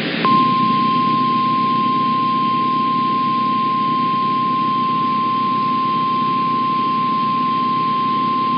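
NOAA Weather Radio warning alarm tone: one steady high beep at about 1050 Hz, starting a quarter second in and held unbroken over radio hiss. It is the alert signal sent ahead of a warning broadcast.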